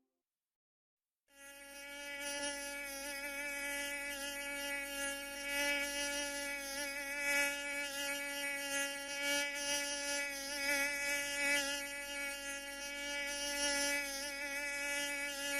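Insect buzzing sound effect: a steady buzz that starts about a second in and wavers slightly in pitch and loudness.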